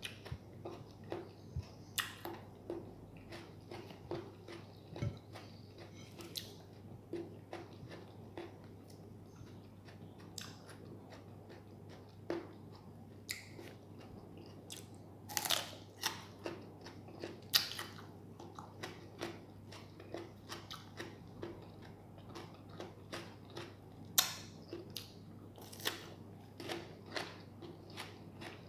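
A person biting and chewing raw cucumber: irregular crisp crunches and wet chewing, a few louder crunches in the second half, over a faint steady low hum.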